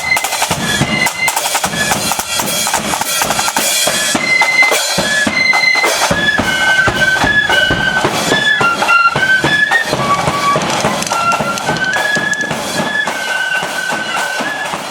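Marching flute band playing a tune: flutes carry the melody in unison over snare and bass drums beating time.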